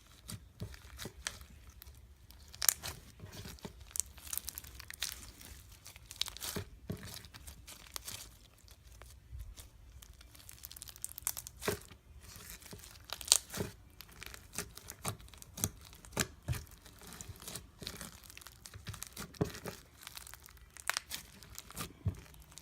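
Foam slime packed with foam beads being squeezed and pulled by hand, making irregular crackling and popping as the beads and slime squish.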